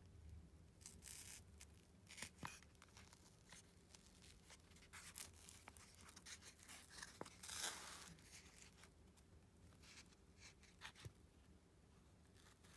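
Quiet eating sounds from an orange Calippo ice lolly: scattered soft clicks and crackles from biting the ice and handling its cardboard tube, with a longer crackling rasp about seven and a half seconds in.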